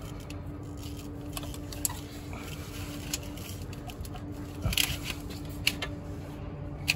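Scattered light clicks and taps of a small pocket pry bar and fingers working the wastegate control-line fitting on a Holset turbocharger, over a steady low hum.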